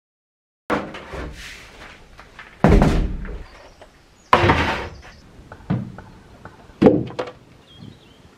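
Plastic storage drums and crates being handled and set down: a string of loud knocks and thuds a second or two apart, some with a short scraping drag, starting suddenly under a second in.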